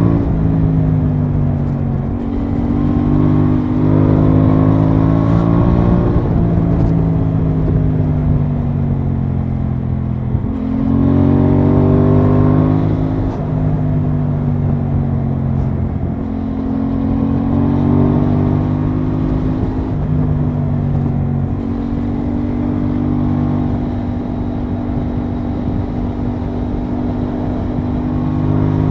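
Aprilia Tuono 660's 659 cc parallel-twin engine under way, heard from the rider's seat. The revs climb and fall repeatedly with short breaks between climbs, then hold fairly steady near the end.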